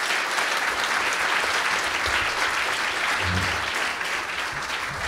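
Audience applauding: dense, steady clapping from many hands, easing slightly near the end, with a brief low thump about three seconds in.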